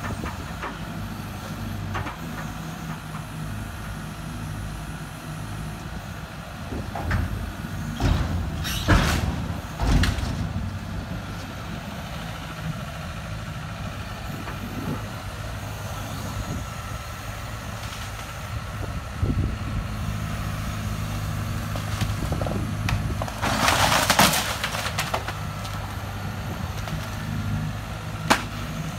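Hyundai 140LC-9A excavator's diesel engine running steadily while its bucket breaks up the shed walls. There are loud crashes of breaking boards and debris about eight to ten seconds in, a longer crunching clatter around twenty-four seconds, and a sharp crack near the end.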